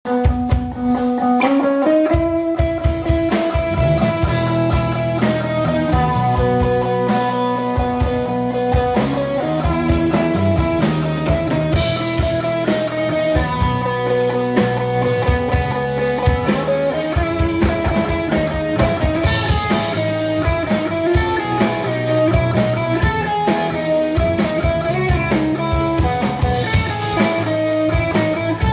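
A rock band playing live: electric guitars and bass holding chords over a steady drum-kit beat.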